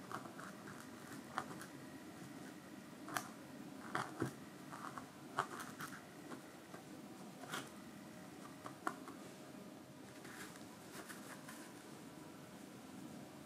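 Felting needle stabbing wool roving into a foam pad: faint, irregular soft pokes and small sharp clicks over a steady low hiss, with a short run of quicker clicks about ten seconds in.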